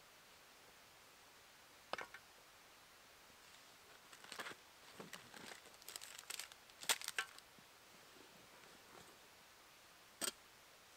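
Handling sounds of gear being unpacked from a leather bag: scattered rustling and crinkling of packets, loudest around the middle, with a sharp click about two seconds in. Near the end, a single sharp knock as a small pot is set down on the logs.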